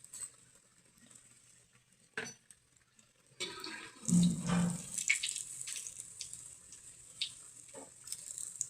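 Kitchen handling sounds: scattered clinks and taps of utensils and dishes, busiest and loudest from about three and a half to five and a half seconds in.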